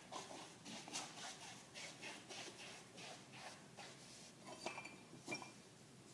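Props being handled in a plastic bin: faint shuffling knocks, then two sharp clinks about half a second apart near the end, each with a short ring.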